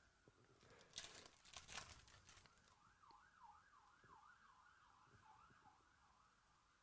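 Near silence with faint crinkles and clicks in the first couple of seconds, typical of handling a card pack's wrapper and cards. After that comes a faint siren wailing up and down about three times a second.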